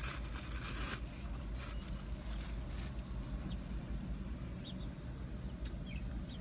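Steady low hum inside a parked car, with a few faint, short bird chirps from the middle on.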